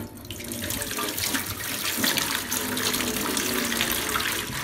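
Kitchen mixer tap, freshly fitted with a new tap reviver headgear, turned on and running water into a stainless steel sink. The flow starts suddenly and stops right at the end, showing the repaired tap now works.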